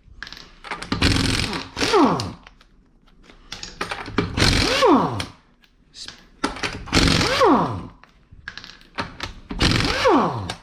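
Impact wrench spinning off 19 mm lug nuts in a series of short bursts, each trailing off in a falling whine as the tool winds down.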